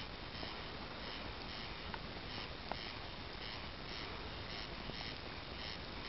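Wood bonfire burning with a steady rush and a few sharp crackles, the loudest just under three seconds in. A faint high pulsing, about three a second, sits behind it.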